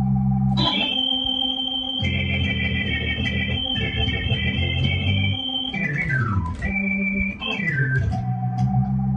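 Electronic keyboard played with an organ sound in a gospel style: held chords over a steady bass with a long high note on top, then two quick descending runs, about six and about eight seconds in.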